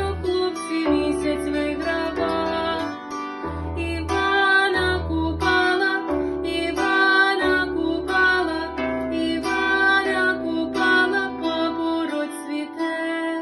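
Music: a plucked string instrument playing a quick melody of short, sharply started notes over sustained low bass notes.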